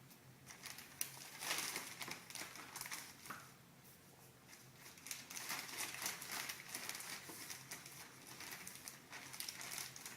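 Thin plastic poly bag rustling and crinkling as it is handled and items are slipped into it, in a run of irregular crackles and light taps.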